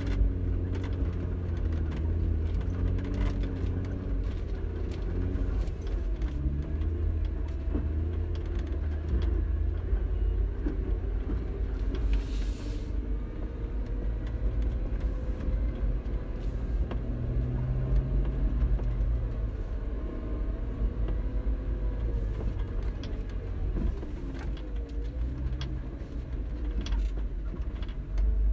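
A Jeep driven slowly over rough dirt tracks and slopes: the engine runs with a low rumble and its pitch rises and falls with the throttle. Scattered knocks and rattles come from the body as it goes over the ruts.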